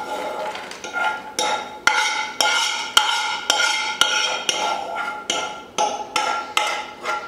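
Steel spoon knocking and scraping against a pan and plate as dry-roasted nuts and raisins are emptied out, about two sharp ringing knocks a second.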